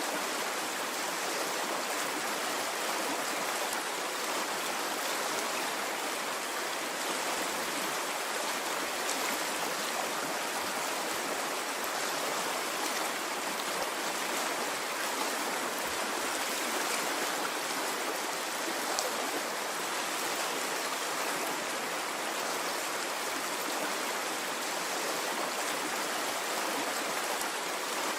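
Flowing stream of water rushing and trickling in a steady, unbroken wash.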